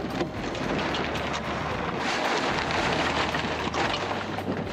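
Wind buffeting the microphone in gusts, loudest about halfway through, with short rustles and knocks from the lug sail and rigging of a small plywood sailing skiff as the sail comes down.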